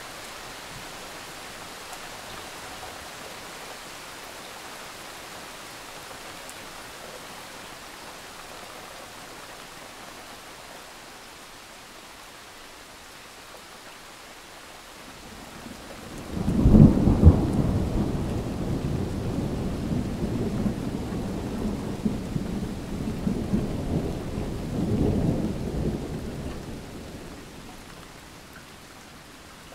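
Steady rain hissing, then about halfway in a sudden clap of thunder that rolls on as a low rumble, swells once more, and fades away over about ten seconds.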